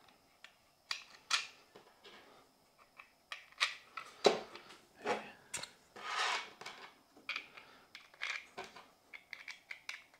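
Small screws clicking and scraping as they are fitted by hand into the slots of 3D-printed PETG plastic pillars, with the plastic parts knocking and rubbing as they are handled and set down. The clicks come irregularly, a few each second.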